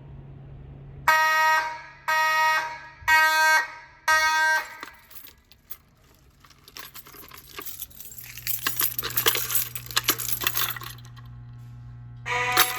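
Simplex 2903 fire alarm horn sounding four short blasts about a second apart, the audible walk-test signal for an activated device. A few seconds of clicking and rattling follow, and the horn starts sounding again near the end.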